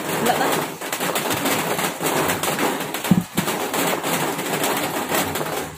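Steady rain falling, an even hiss throughout. A brief low note sounds about three seconds in.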